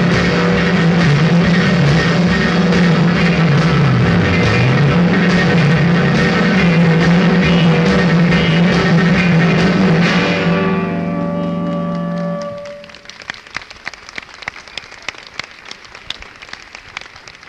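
Live rock band playing loud, with electric guitar and drums. About ten seconds in the music breaks off into a few held, fading notes, and about twelve and a half seconds in it drops away, leaving faint irregular clicks and crackle.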